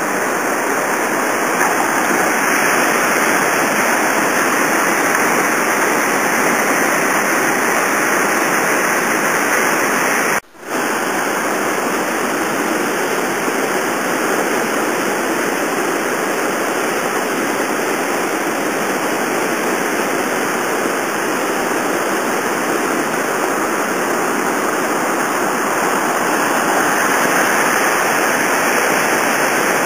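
Whitewater rapid pouring steeply between boulders: a steady rush of water that cuts out for an instant about ten seconds in.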